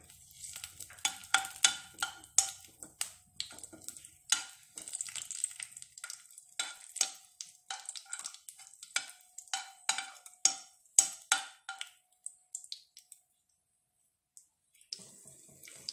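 Spatula scraping and tapping against a ceramic-coated kadai while stirring raisins frying in hot ghee, with a light sizzle; many quick sharp clicks and scrapes that stop about twelve seconds in.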